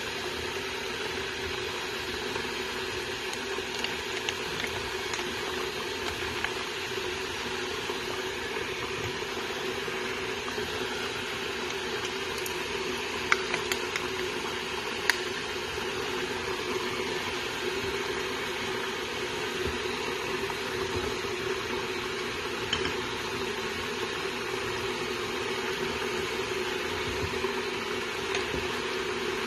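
A pot of chicken in tomato juices simmering on the stove: a steady bubbling hiss, with a few sharp clicks a little under halfway through.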